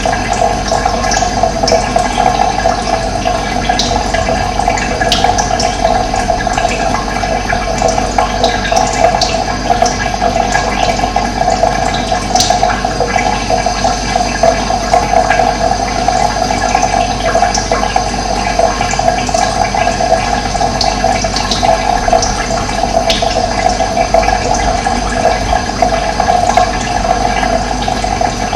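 Running water, a steady rushing flow, with short bird chirps scattered over it.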